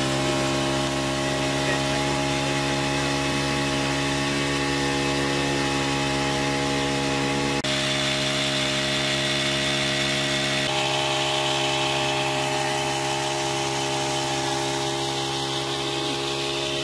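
Small four-stroke petrol engine of a power sprayer running steadily at constant speed, driving the sprayer's piston pump. Its sound shifts abruptly twice, a little before halfway and again about two-thirds through.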